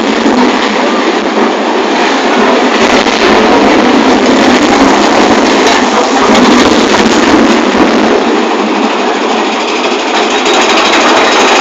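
Big Thunder Mountain Railroad's mine-train roller coaster running along its track: a loud, steady rumble and rattle of the cars and wheels on the rails.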